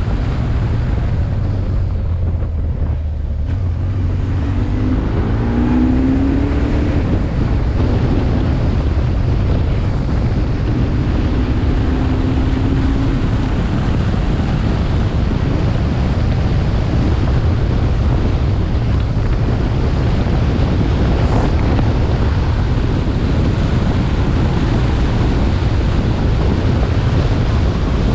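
Heavy wind rushing over a helmet-mounted camera's microphone at road speed, with a BMW R1150R's boxer twin engine running underneath. The engine note shows through briefly twice, rising a few seconds in and again around twelve seconds.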